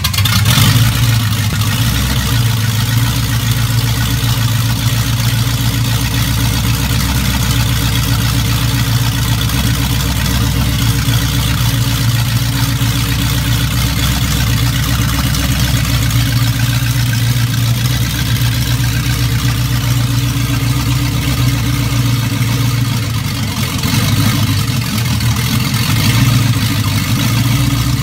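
Ford flathead V8 with Ardun overhead-valve heads and a SCoT supercharger, running steadily just after starting, with a couple of slight swells in the engine note late on.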